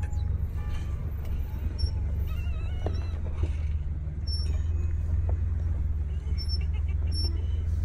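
Off-road vehicle driving: a steady low rumble of engine and tyre noise.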